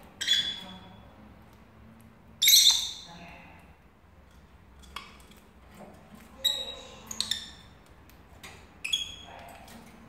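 Rosy-faced lovebirds giving about half a dozen short, sharp, high-pitched chirps and squawks, the loudest about two and a half seconds in.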